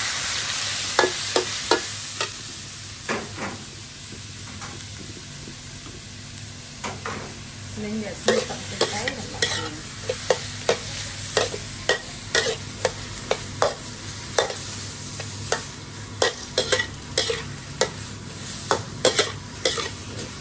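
Squid pieces sizzling in a steel wok while a metal spatula stirs and scrapes them, its strokes clicking against the pan again and again. The sizzle is loudest at the start and settles lower.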